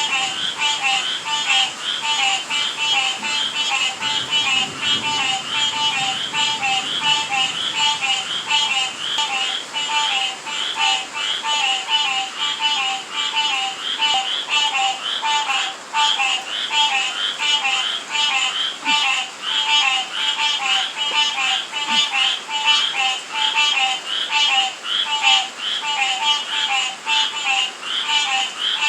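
A chorus of frogs and toads calling without pause, short calls repeating in quick, even succession, over the steady hiss of rain.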